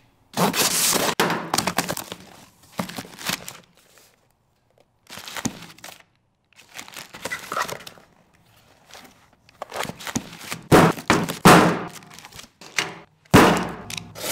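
Cardboard box being opened: a utility knife slicing packing tape, cardboard flaps and paper packing rustling, and small boxes set down on a workbench with sharp knocks, most of them near the end.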